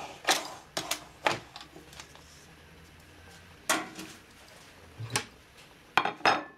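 Handling of a metal springform pan: a series of short, sharp clicks and knocks as the pan's ring is unclipped and lifted off a baked pie and set down on the stove grate, then a plate put down on the counter near the end.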